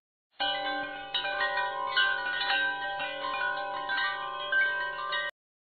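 Chime-like ringing notes, several sounding together and overlapping as new ones come in. They start about half a second in and cut off abruptly near the end.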